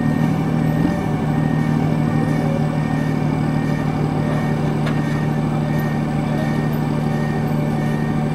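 Large diesel engine of a heavy port container-handling vehicle running steadily: a deep, even hum that settles slightly lower about a second in.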